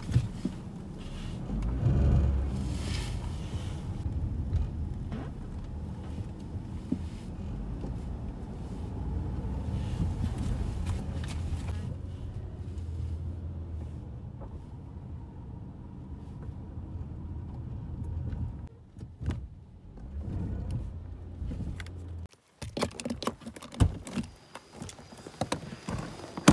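Car driving, heard from inside the cabin: a steady low rumble of engine and road noise. It breaks off about 22 seconds in and gives way to a few scattered knocks and clicks.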